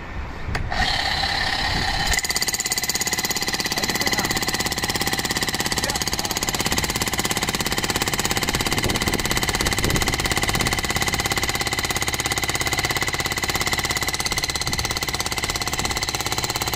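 Bosch GSH 11 E electric demolition hammer chiselling into a concrete slab: rapid, steady hammering blows over the motor's whine. It starts about a second in and runs at full force from about two seconds in.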